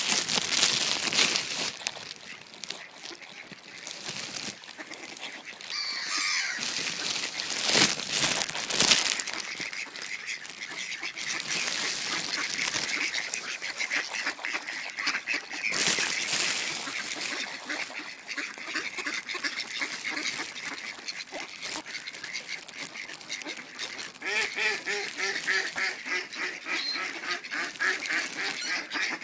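A group of mallard ducks quacking over and over on the water, the calls thickest near the end. A few loud brief rustles come about eight and sixteen seconds in.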